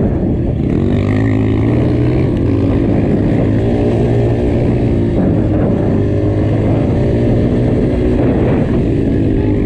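Dirt bike engine running under load, heard close from the bike itself, its pitch rising and falling as the throttle opens and closes.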